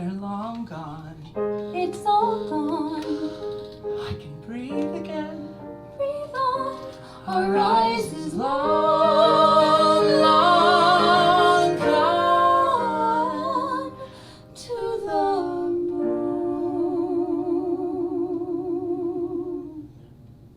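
A woman singing long held notes with vibrato over instrumental accompaniment, in a musical-theatre song. The loudest, highest note is held from about eight to twelve seconds in, and a lower note is held near the end.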